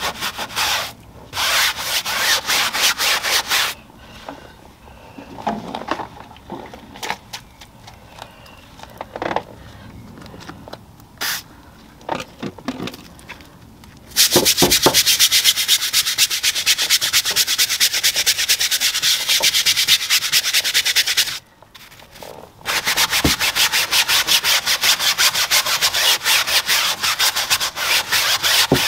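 Stiff-bristled tyre brushes scrubbing a wet, foamy car tyre sidewall: rapid back-and-forth strokes of bristles on rubber. Short spells of scrubbing at the start give way to a quieter stretch of light knocks and handling, then hard continuous scrubbing from about halfway, broken once by a brief stop.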